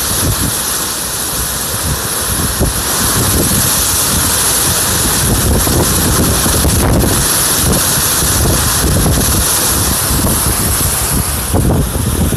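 Hurricane-force wind blowing hard: a loud, constant rush of wind, with irregular low buffeting where the gusts hit the microphone.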